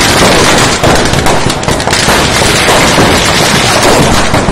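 A dense barrage of firecrackers exploding, the bangs overlapping in a continuous loud crackle with no break.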